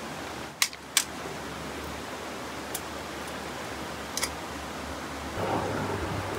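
Steady rush of a stream flowing over rocks, with a few sharp clicks; the two loudest come about half a second apart near the start. About five seconds in, the rushing becomes louder and deeper.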